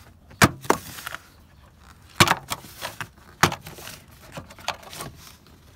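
Plastic interior trim on a Nissan 350Z being pulled off by hand, its clips popping loose with a series of sharp clicks and knocks roughly a second apart.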